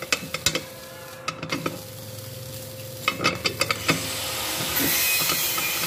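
Loose metal screw-on collar of a meat grinder clicking and scraping on its worn threads as it is turned and wobbled by hand, in two short runs of clicks. Near the end a steady hiss comes in.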